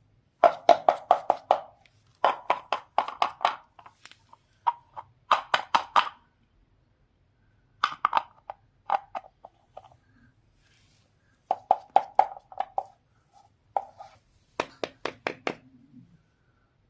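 Quick runs of small, sharp, hard taps from miniature toy kitchen pieces, about six to eight a second, in bursts of a second or so with short pauses between.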